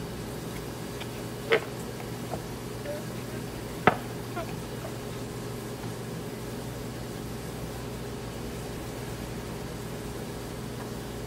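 Beagle licking milk from a bowl and off the floor, over a steady mechanical hum. Two short sharp knocks, about a second and a half in and about four seconds in.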